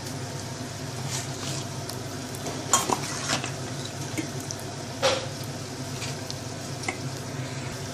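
A spoon stirring boiled taro root (arvi) pieces through a thick spice paste in a bowl: soft scraping with a few clinks against the bowl, the sharpest about three and five seconds in, over a steady low hum.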